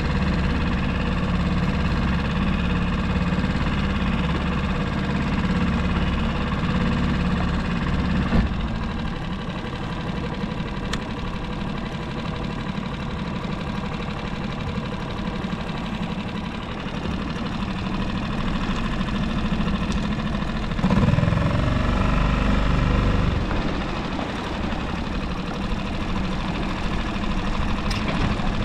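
Small outboard motor on a solo skiff running steadily, dropping to a lower note about eight seconds in, then rising in pitch and getting louder for a couple of seconds around twenty-one seconds in as it speeds up.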